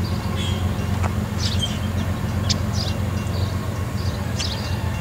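Small birds chirping repeatedly over a steady low drone.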